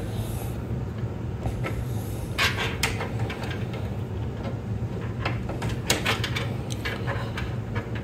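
A sleeved PCIe 8-pin power cable and its plastic connector being handled and pushed into a graphics card's power socket: rustling and several short sharp clicks, over a steady low hum.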